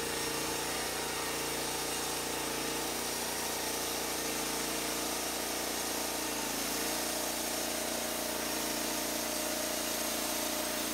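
Portable band sawmill's engine running steadily with the band blade turning, with a brief dip in pitch about six seconds in.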